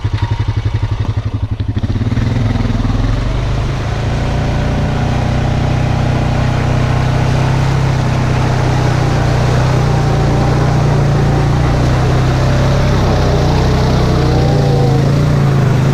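Honda Rancher 420 ATV's single-cylinder four-stroke engine idling with a fast, even pulse. About two seconds in it settles into a steady run under throttle as the quad pulls along a muddy trail.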